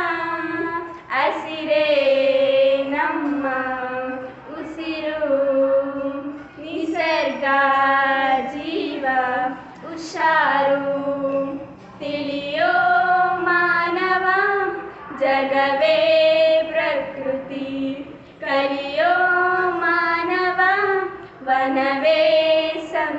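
Two schoolgirls singing a Kannada song together, in long held phrases with short breaths between them.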